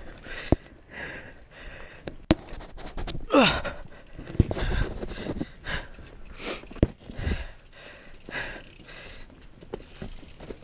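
A mountain biker panting hard while riding a rough, rocky downhill trail, with sharp clatters and knocks from the bike over rocks and roots. There is a short falling squeal about three and a half seconds in.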